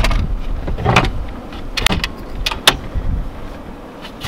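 A plywood board with round holes being lowered and laid onto a wooden bed platform in a car: wood scraping on wood about a second in, then several sharp wooden knocks.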